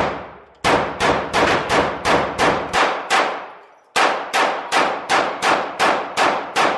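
Semi-automatic pistol fired rapidly at an indoor range, about three shots a second, each crack ringing off the lane walls. One quick string of shots runs for about three seconds, then after a brief pause a second string follows.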